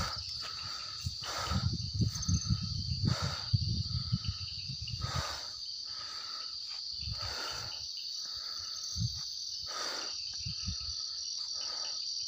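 Night insect chorus: a steady high-pitched trill with a fainter pulsing chirp under it. Low rustling thumps come and go over the first five seconds or so.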